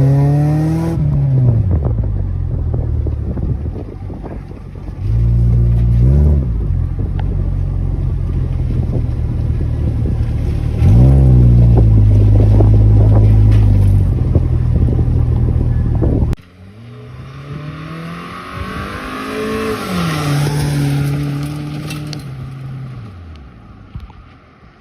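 Honda Orthia's exhaust muffler as the engine is revved in short blips from idle, with one rev held for a few seconds. About two-thirds of the way through the sound cuts off suddenly to a quieter take, where the engine is revved once more and settles back.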